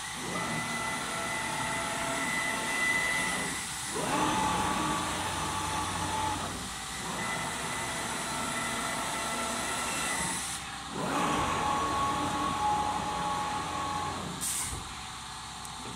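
CNC oscillating-knife fabric cutting machine running, its motors whining in steady tones over a hiss as the cutting head moves through passes. The passes are broken by short pauses every few seconds. Near the end there is a click, and after it the whine stops and a lower steady hum continues.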